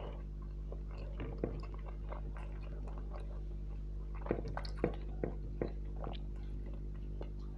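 Close-miked chewing and wet lip-smacking of someone eating rice and fish curry, with a few sharper smacks about two-thirds of the way through, over a steady low electrical hum.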